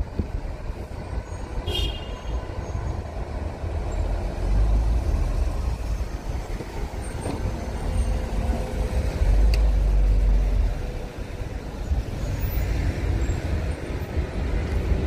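Road vehicle noise: a continuous low rumble of motor traffic or a moving vehicle, without speech.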